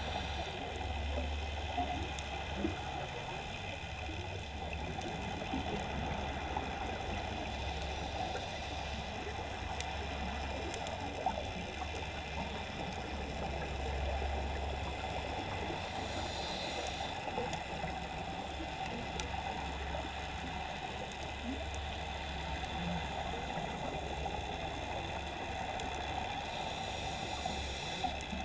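Underwater sound from a scuba dive: a steady low rumble of water, broken by a hiss of exhaled regulator bubbles about every eight to ten seconds, four times in all.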